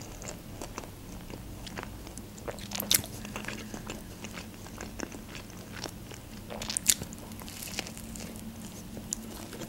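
Chewing and biting into a club sandwich of toasted bread and lettuce: soft mouth clicks, with sharper crunches about three seconds in and again around seven seconds.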